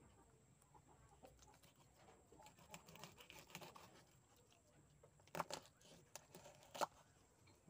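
Mostly quiet knife work: faint cutting and scraping as a knife splits a tilapia on a wooden cutting board, with two short sharp sounds about a second and a half apart in the second half.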